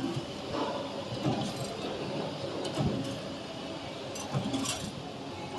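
CNC 3D wire bending machine running as it feeds and bends wire, with irregular knocks and a few sharp metallic clinks.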